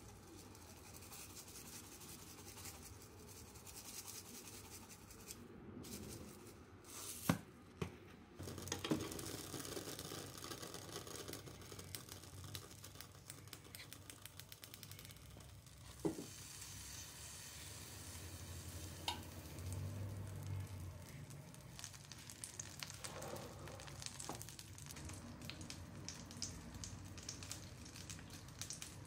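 Quiet food-preparation sounds: soft handling noises with a few sharp clicks and knocks, and a faint sizzle of butter melting in a non-stick frying pan. Near the end, a run of small ticks and scrapes as raw chicken breast is dredged in flour with a fork.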